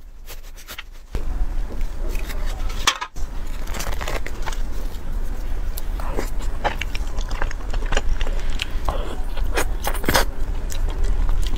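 Close-up eating sounds: gloved hands handling a soft custard-filled cream bun, then biting into it and chewing, with many short clicks and crackles. A steady low hum comes in about a second in.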